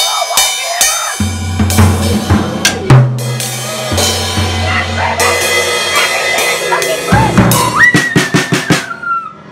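Gammon Percussion drum kit played with sticks: loose, irregular strikes on the drums and an SBR cymbal, with low drum ringing. It ends in a quick run of hits near the end.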